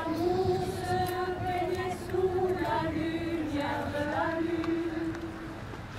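Mixed amateur choir of men and women singing unaccompanied, holding long notes in a slow melody.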